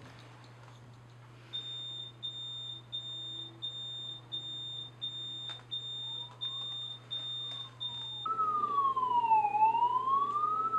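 Automatic fire-alarm paging over a public-address speaker. A high electronic beep repeats about twice a second, then about eight seconds in a louder electronic siren takes over, wailing slowly up and down. These are the alarm tones set off by a fire sensor detection.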